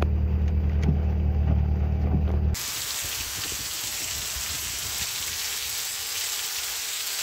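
Rain on a window pane over a steady low hum with faint ticks of drops on the glass. About two and a half seconds in, this cuts to heavy rain falling, an even steady hiss.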